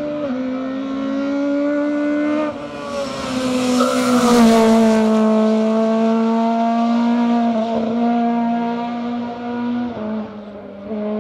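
Race car engine at high revs as the car passes at speed, its note held high with a few steps in pitch, growing loudest as it goes by about four seconds in, then fading as it pulls away up the hill.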